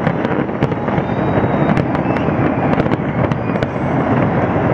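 A large fireworks display going off: a dense, unbroken din of bursts with sharp cracks and pops several times a second.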